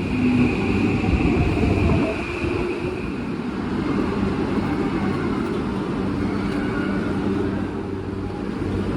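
Train running: a steady low rumble with a hum, and a high whine over it in the first couple of seconds.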